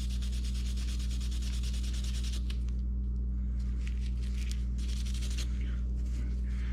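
Brass wire brush scrubbing a rusted steel hand tool, clearing rust that Evaporust has loosened: rapid back-and-forth strokes at first, turning to slower, separate strokes after about two and a half seconds. A steady low hum runs underneath.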